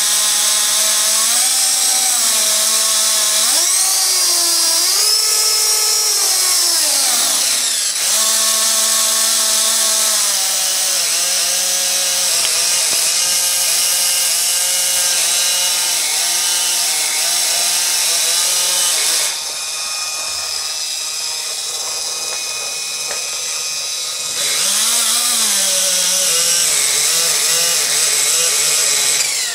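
Walkera CB180D RC helicopter's electric motor and gears whining as the main rotor spins with the skids resting on the floor. The pitch and level rise and fall several times with the throttle. Over it runs a steady high hiss.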